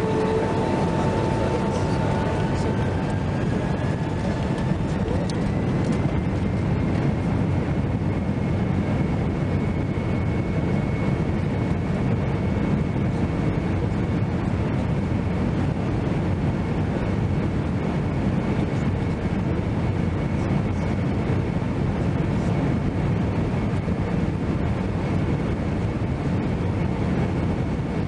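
Inside the cabin of a Boeing 767-300ER during the takeoff roll: the twin turbofan engines spool up to takeoff thrust with a steady loud rumble. A whine climbs in pitch over the first few seconds and then holds steady.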